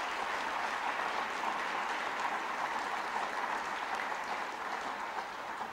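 Large audience applauding, dense and steady.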